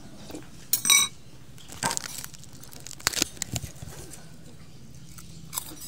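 Spoon clinking against a bowl several times while eating. The loudest clink, about a second in, rings briefly, and a quick cluster of clinks comes about three seconds in.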